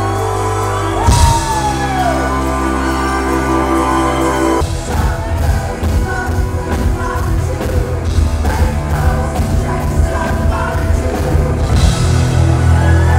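Live rock band playing, with a singer. Held keyboard and bass notes with a cymbal crash about a second in, then the drums and full band kick in partway through.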